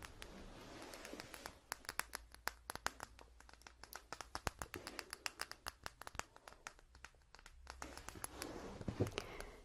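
Close-miked ASMR handling sounds: a quick, irregular run of small, sharp clicks and taps over soft rubbing and rustling, with a low thump near the end.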